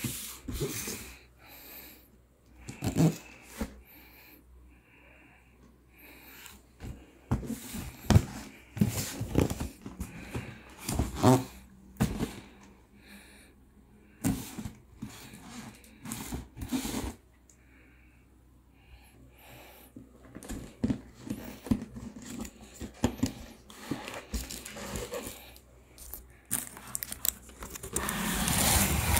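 Cardboard shoe box being handled and opened: irregular knocks, scrapes and slides of the box and lid. Near the end, a longer rustle of the plastic and tissue wrapping inside.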